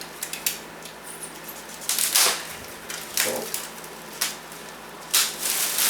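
Several short bursts of rustling and knocking as a folding clothes drying rack is handled.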